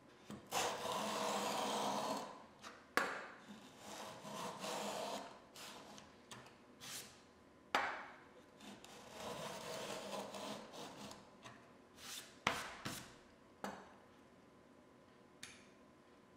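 Router plane cutting in a groove in a wooden board: its blade scrapes and shaves the wood in several strokes of a second or two, with a few sharp knocks in between.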